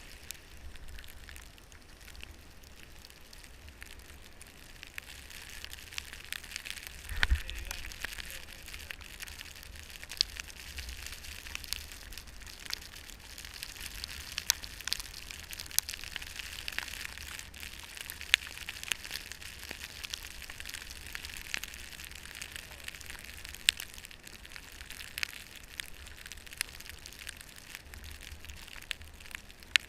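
Steady hiss of snow with many small scattered ticks, like snow or ice grains striking, and one louder knock with a low thud about seven seconds in.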